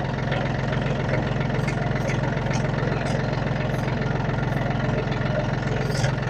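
John Deere 870 compact tractor's three-cylinder diesel engine running steadily, with faint short clicks now and then.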